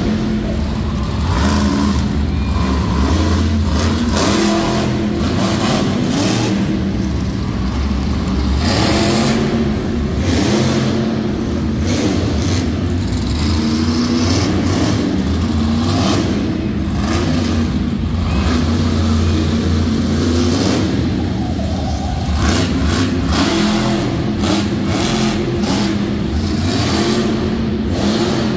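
Monster truck engine running loudly and revving, its pitch rising and falling again and again as it drives about, with short bursts of harsher noise now and then.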